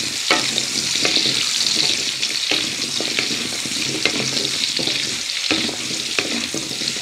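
Potato chunks and garlic being lightly fried in oil in a metal wok, sizzling steadily, while a wooden spatula scrapes and taps against the pan a few times as they are stirred.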